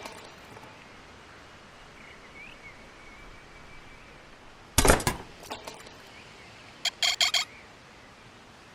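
A single sharp, loud impact about five seconds in, followed by a few lighter knocks, then a quick run of short metallic clinks about seven seconds in, over a steady background hiss.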